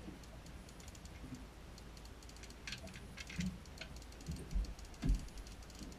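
Fishing reel clicking in quick runs about halfway through, as a hooked fish is being played on a bent rod. Several low thumps follow near the end.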